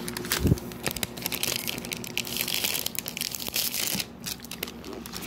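Thin plastic packaging crinkling and crackling as hands crumple and work open a snack-and-toy bag, with a dull knock about half a second in.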